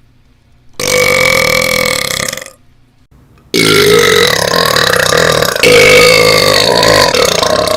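A person belching loudly twice: a short burp of about two seconds starting a second in, then, after a brief pause, a long drawn-out burp that keeps going to the end.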